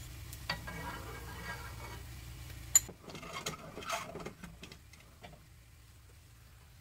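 Scattered clicks and taps of cooking utensils against a frying pan, with one loud clack about three seconds in, then a few lighter taps.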